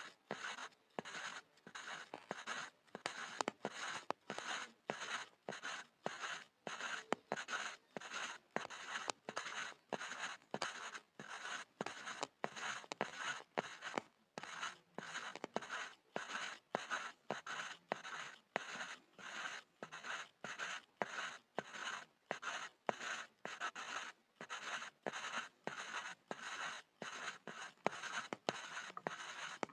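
Pencil scribbling on a board: dry scratching in short, even, repeated strokes, a few a second.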